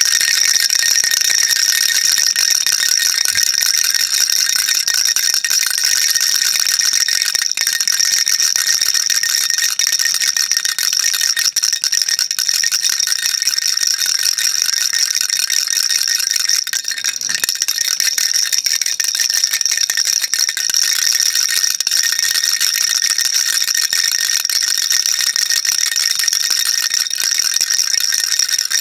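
A baby rattle shaken without a break: a dense, steady high-pitched rattling of small beads inside the toy.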